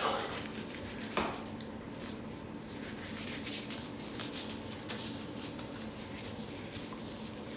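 Thin disposable plastic gloves rustling and rubbing as they are pulled on and flexed over the hands, with one sharp click about a second in.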